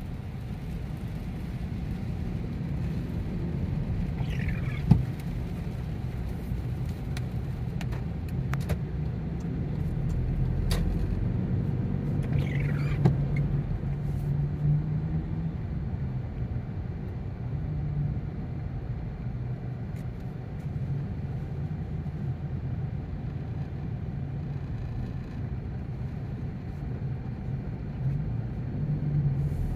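Car driving, a steady low rumble of engine and road noise, with two short falling squeaks, one about four seconds in and one about twelve seconds in.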